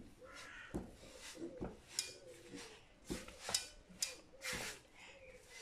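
Silicone spatula stirring and scraping a thick, crumbly gur papdi mixture around a nonstick kadai, in irregular strokes with several louder scrapes.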